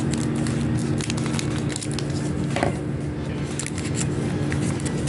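Foil trading-card booster pack wrapper crinkling and crackling in the hand as it is opened, with irregular sharp crackles over a steady low hum.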